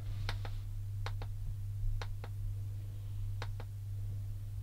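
Buttons on a handheld controller clicking while scrolling through a streaming menu: short sharp clicks, mostly in quick pairs, about once a second, over a steady low hum.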